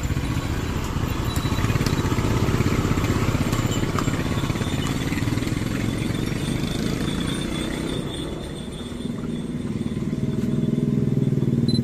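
Motorcycle engines running close by, dipping a little about eight seconds in and growing louder again near the end.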